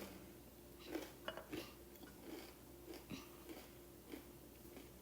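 Faint small clicks and mouth noises close to a microphone, over a low steady hum.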